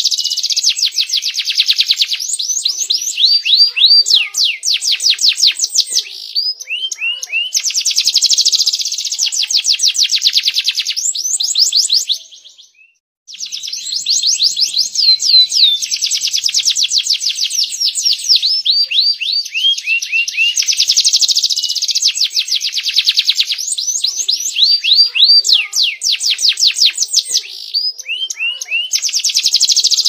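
Domestic canary singing a long, nearly unbroken song of fast trills and runs of repeated rising whistled notes, broken once by a second of silence about twelve seconds in.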